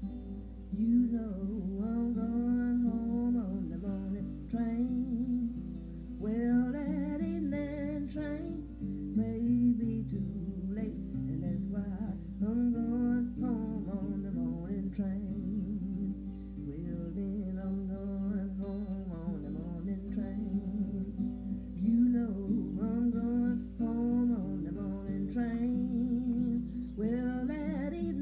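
Blues played on acoustic guitar, picked and strummed steadily, coming from a vinyl record on a turntable.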